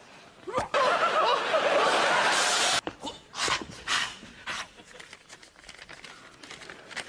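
A man's comic wordless vocal noises: a loud, rasping, wavering cry of about two seconds that cuts off abruptly, then a string of short, quieter breathy sounds and laughter.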